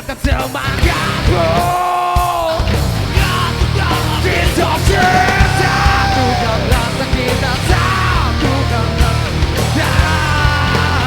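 Loud, heavy rock song with shouted, yelled singing over the full band. About two seconds in the low end drops away under a long held sung note, then the band comes back in full.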